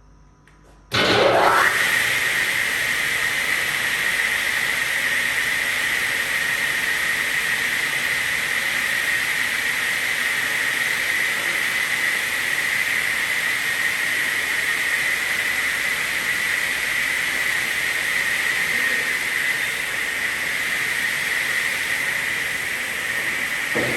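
Circular saw blade of a carousel pallet-block saw spinning up about a second in, its pitch rising quickly to a steady high whine, then running at speed with an even rush of noise and no cuts.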